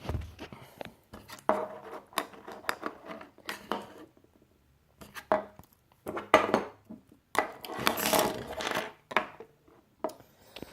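Hard plastic clicking and rattling of an action figure's ice-fist accessory, its parts snapped together on pegs and pushed at the figure's hand by fingers, in irregular bursts with a pause about four seconds in.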